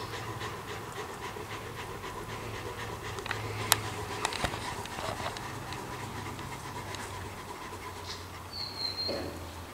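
A dog panting, with a low steady hum underneath and one sharp click a little under four seconds in.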